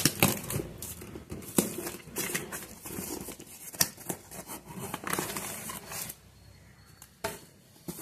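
Taped cardboard parcel being torn open by hand: tape and cardboard ripping and rustling, with sharp snaps and crinkling of the packaging. It stops about six seconds in, with one short rustle after.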